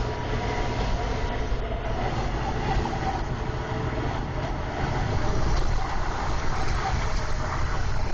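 Truck's engine and road noise heard inside the cab while driving at highway speed. It is a steady drone that gets a little louder about five seconds in.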